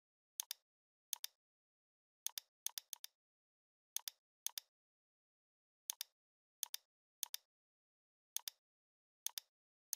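Computer mouse clicks, about a dozen at irregular intervals, each a quick press-and-release pair, against dead silence.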